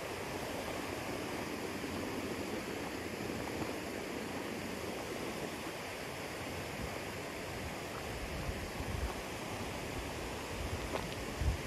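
Steady rushing noise of flowing water, like a stream, with low rumbling bumps in the last few seconds.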